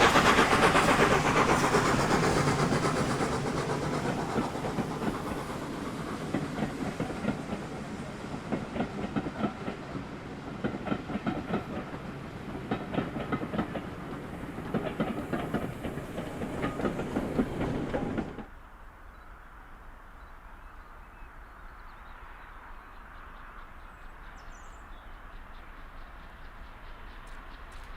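A steam-hauled train passing, loudest at the start and fading away, with its wheels clicking rapidly over the rail joints. About two-thirds of the way through the sound cuts off suddenly, leaving a much quieter background.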